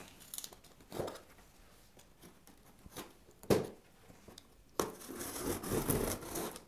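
Cardboard shipping box being opened: packing tape ripped off and the flaps rustled and scraped. A few short rips, then a longer rustling scrape over the last couple of seconds.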